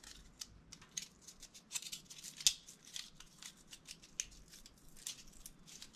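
Laser-cut cardboard pieces being crunched and crinkled by hand to soften them, making an irregular run of short, sharp crackles.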